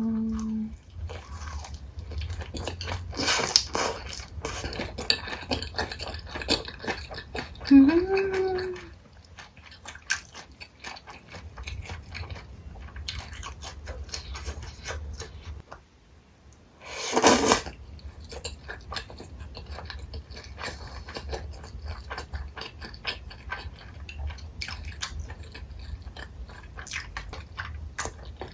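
Close-miked chewing of spicy chicken feet: many small wet clicks and smacks as the skin and cartilage are bitten and sucked off the bones. There is a short rising vocal sound about 8 s in and a loud burst of noise about 17 s in.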